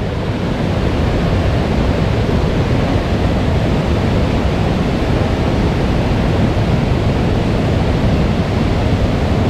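A mountain stream running high, its water rushing steadily.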